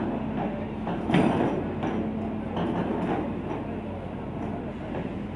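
Komatsu excavator's diesel engine running steadily with a low, even drone while the bucket is held still. A sharp metallic knock about a second in, with a few lighter knocks around three seconds in.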